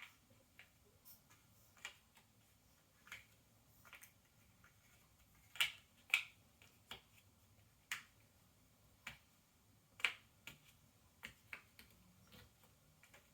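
Cardboard jigsaw puzzle pieces being picked up, placed and pressed together on a table: scattered light clicks and taps at an uneven pace, the loudest a pair about six seconds in and another about ten seconds in.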